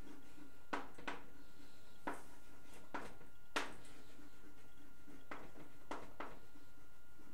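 Chalk tapping and scraping on a blackboard as words are written: about eight short, sharp taps at uneven intervals, over a steady background hiss with a faint steady whine.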